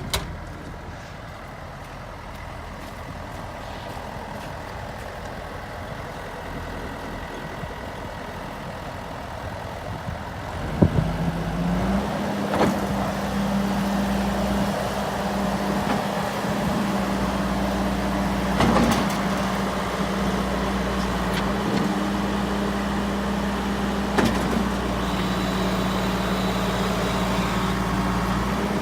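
Tracked skid steer's diesel engine running steadily at a low speed. About eleven seconds in there is a click, and the engine comes up to a louder, steady higher speed and holds there. A few sharp knocks sound along the way.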